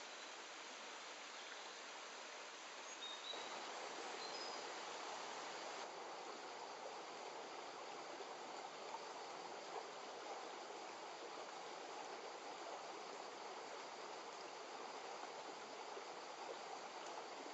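Shallow rocky woodland stream running over stones: a faint, steady rush of flowing water. It grows slightly louder about three seconds in, with a few brief high chirps around then.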